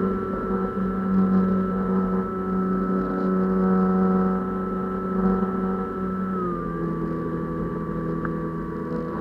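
Small fixed-wing UAV's motor and propeller running steadily, heard from the camera on board the aircraft as a droning tone that drops slightly in pitch about six and a half seconds in.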